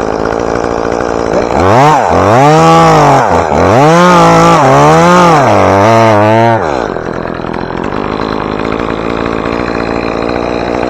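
Chainsaw running, its revs rising and falling three times, then dropping back to a quieter steady run about seven seconds in.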